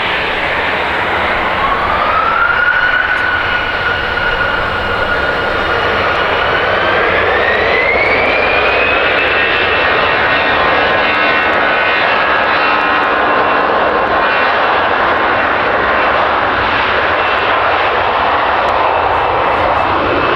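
Jet airliner's turbofan engines spooling up, loud and steady, with a whine that rises in two steps and then holds high.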